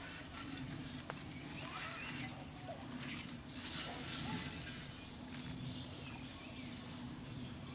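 Quiet outdoor ambience with a steady low hum and scattered faint short calls, and a brief hiss of water about four seconds in as a wet cast net is hauled through the pond.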